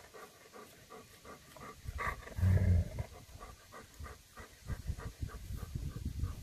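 German Shepherd panting in quick, even breaths, with one short low rumble about two and a half seconds in.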